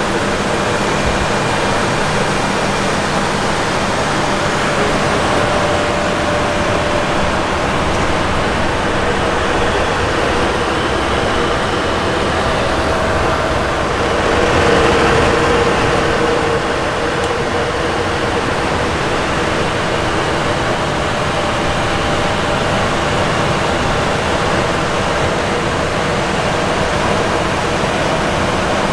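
Steady rush of ventilation air and equipment fans in a parked Boeing 767-300F's cockpit, with a faint steady hum under it. It swells briefly about halfway through.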